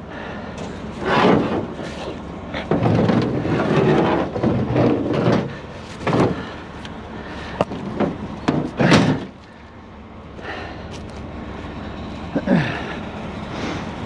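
Heavy steel wire rope dragged over the side of a pickup bed and dropped onto steel landing mats: repeated clanks, rattles and scraping, most of them in the first nine seconds, then only a few.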